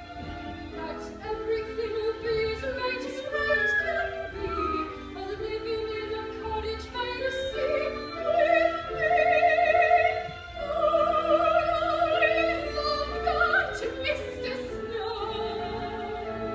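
A woman singing a musical-theatre song in a classical style with strong vibrato, over an instrumental accompaniment. She holds long, swelling notes through the middle.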